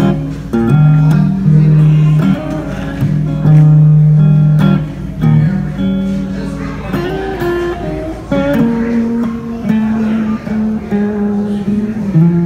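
Electric guitar played through a Blackstar combo amplifier: a lead melody of long sustained single notes that step up and down in pitch, with a few slides between them.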